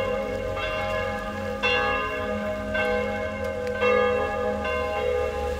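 Bells ringing, a new strike about once a second, with each ring sounding on between strikes.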